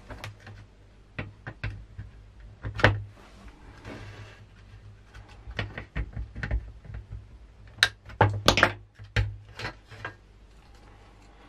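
Irregular plastic clicks and knocks as the display circuit board of a set of electronic bathroom scales is worked off the plastic clip posts of its housing, with a short scrape about four seconds in.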